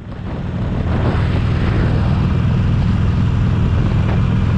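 Harley-Davidson Sportster Iron 883's air-cooled V-twin running steadily on the move, a dense low rumble mixed with wind noise, fading in over the first second.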